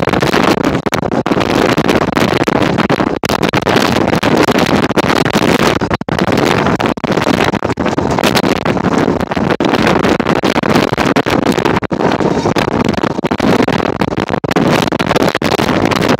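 Heavy wind buffeting the microphone aboard a moving open-top 1934 English Electric Blackpool boat tram, over the noise of the tram running along its rails.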